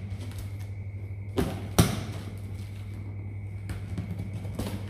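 A knife slitting the packing tape on a cardboard box, with two sharp knocks about a second and a half in, the second one the loudest, and scraping cuts through tape and cardboard near the end. A steady low hum runs underneath.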